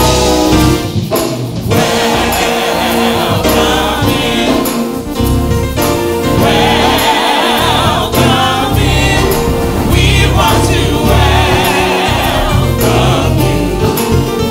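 Gospel praise team of several voices singing a welcome worship song in harmony over band accompaniment with steady bass notes and a regular beat.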